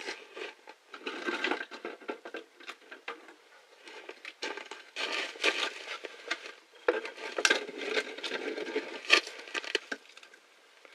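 Firecrackers crackling and popping in a dense, uneven stream of sharp small cracks, in bursts that swell and fade, with a few louder pops, dying away about ten seconds in.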